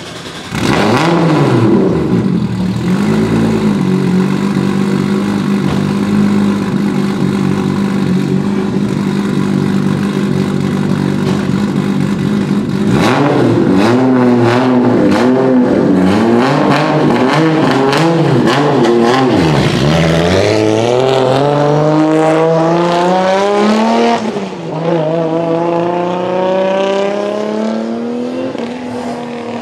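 Single-turbo Toyota 2JZ-GTE straight-six in a drift-built Toyota GT86, running loud. It revs briefly and settles into a steady idle, then gives a run of quick throttle blips with sharp pops. Near the end it accelerates in long rising pulls.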